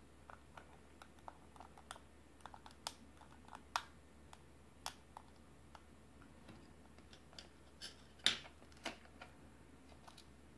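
Irregular small clicks and ticks of a plastic-cased analog panel voltmeter being handled while a small screwdriver turns the zero-adjust screw on its front, with one louder click about eight seconds in.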